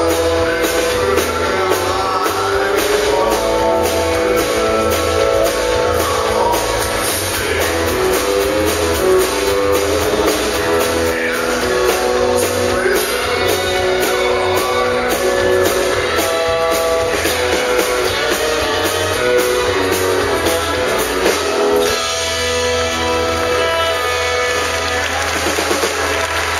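Live country band playing: strummed acoustic guitar, fiddle, electric bass and a drum kit keeping a steady beat.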